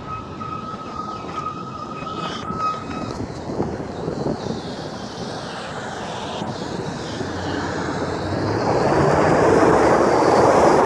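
Ram 2500 pickup driving through standing water, heard from a phone held out of the window. A thin steady whine sounds for the first few seconds over tyre and wind noise. Then a rising rush of water spraying off the tyres builds and is loudest near the end.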